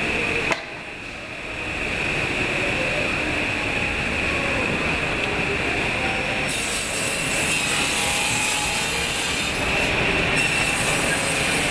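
Circular saw running with a steady high whine while a cane cricket bat handle is fed into it to cut the V for fitting the handle to the blade. A brighter hiss joins about six seconds in.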